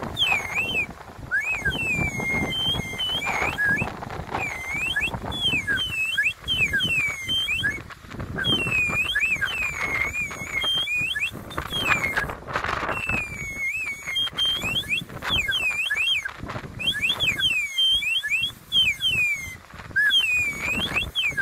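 Waves breaking and washing over a rocky pebble shore, with wind on the microphone, rising and falling. Above it runs a busy, irregular stream of short, high, swooping chirps.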